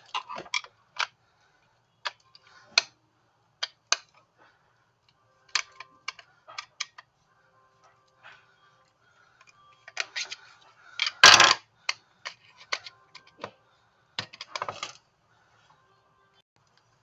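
Irregular light clicks and taps of small plastic items being handled, with one much louder clatter about eleven seconds in.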